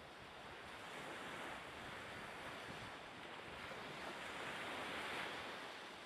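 Steady wash of waves and wind at sea, a rushing noise that swells a little about four to five seconds in.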